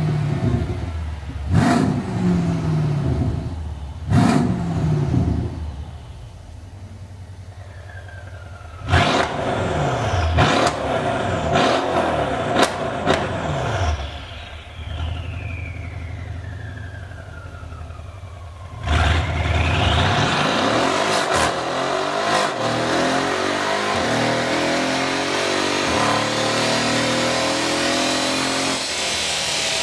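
Mercedes-Benz S 63 AMG twin-turbo V8 breathing through an aftermarket exhaust manifold, downpipe with sport catalysts and valved exhaust, revved hard on a chassis dyno. First come a series of quick sharp revs, each falling back, and then a long falling whine. About twenty seconds in, a long sustained run follows, with the engine note climbing slowly.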